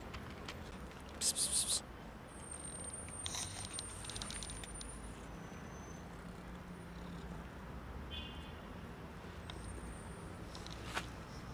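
Tabby cat crunching dry kibble: a quick run of sharp, crackly crunches about a second in and a few more a couple of seconds later, then only faint low background noise.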